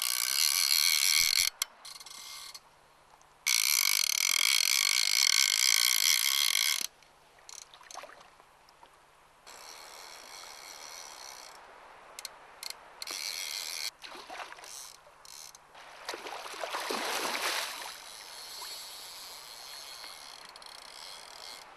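A fly reel's click-and-pawl drag buzzing loudly as line is pulled off fast, typical of a hooked salmon running: two long runs near the start, then several shorter bursts. A rushing swish swells and fades later on.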